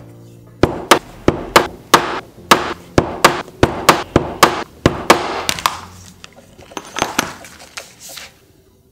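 Mallet blows on a leather pricking iron (diamond stitching chisel), driving a row of stitching holes through leather into a pounding board: a run of sharp knocks, about two to three a second. They pause briefly near the middle and end with a few lighter strikes.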